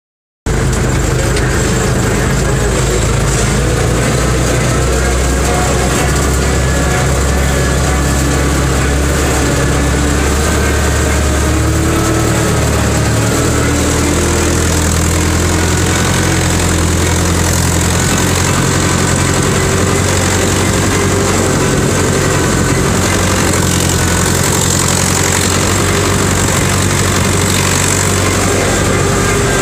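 UTB 651 4x4 tractor's diesel engine running steadily under load while pulling a plough, heard from inside the cab; its note shifts slightly in pitch now and then.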